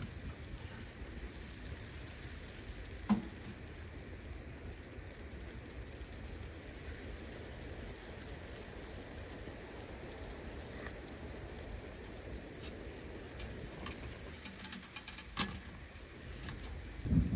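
Wood splits being laid by hand into the ash bed of a small titanium wood stove, with one sharp knock of wood against the firebox about three seconds in. Near the end come metallic clicks as the stove's glass door is swung shut and latched, all over a steady faint hiss.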